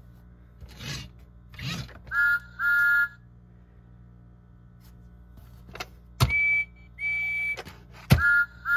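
Toy Thomas and Percy train engines' electronic whistle sound effects, a toot repeated in two short blasts. A lower two-tone toot sounds about two seconds in, a higher single-tone toot comes around six seconds, and the lower toot comes again near the end. Sharp clicks fall between the toots.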